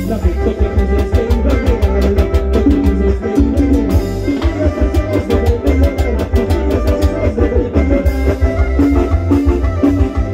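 Live amplified band music with a drum kit keeping a steady beat under violins.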